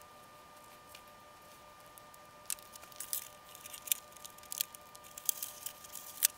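Thin plastic cockpit tub crackling and clicking as it is handled and flexed in the hands. The irregular crackles start a couple of seconds in, with the sharpest click near the end.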